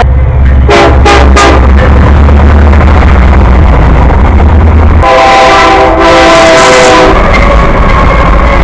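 Diesel freight locomotives passing close and very loud, with heavy low engine rumble. A few short horn blasts come about a second in, and the locomotive's multi-tone horn sounds a chord for about two seconds from about five seconds in.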